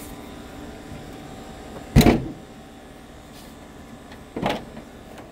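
Two short, loud thunks from the car's hood, about two seconds in and again about two and a half seconds later, as the hood is popped and lifted open.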